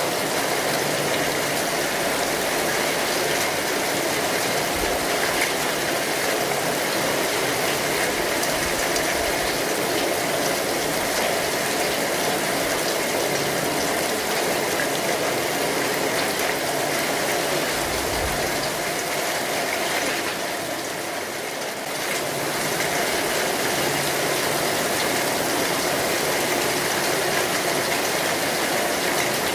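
Steady rain pattering on an umbrella's fabric, going briefly softer about two-thirds of the way through.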